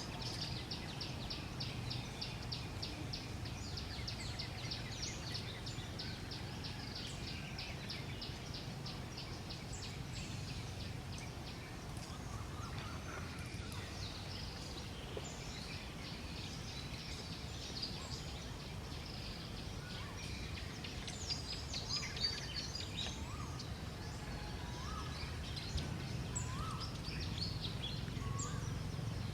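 Forest ambience with birds calling. For about the first ten seconds there is a rapid, even run of high-pitched ticks, followed later by scattered short chirps and rising whistles, all over a steady low rumble.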